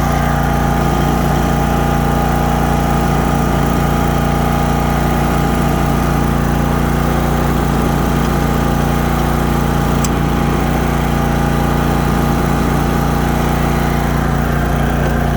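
Cub Cadet Z-Force zero-turn mower's Kohler Command Pro 23 hp V-twin engine running steadily at raised throttle.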